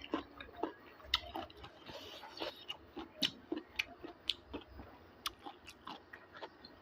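A man chewing pork and bamboo shoot, with irregular smacks and small crunches several times a second.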